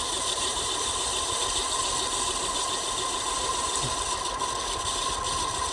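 Ceiling fan running with a steady whir, a constant hum and a scratchy "khis khis" hiss. The noise comes from its ball bearings, whose grease has dried out and which are worn.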